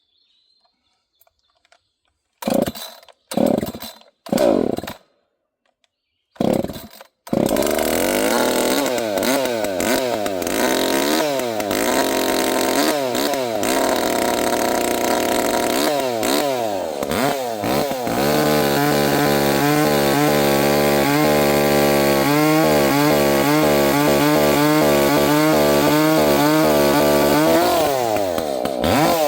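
Echo CS-590 two-stroke chainsaw being pull-started: several short bursts over the first seven seconds before it catches and keeps running. It is then revved up and down and held at a steady high pitch that sags and recovers under load as it cuts through oak, easing off near the end.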